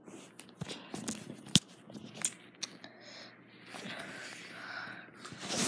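Handling and movement noise: soft rubbing and scattered clicks as the recording phone is moved about, with one sharp knock at the very end.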